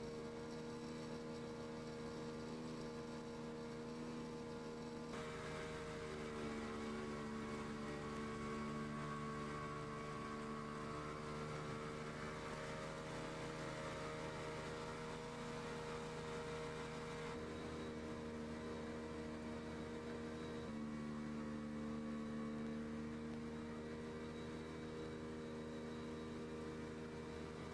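Boat engine running at a steady speed: a continuous low drone whose pitch shifts slightly a few times.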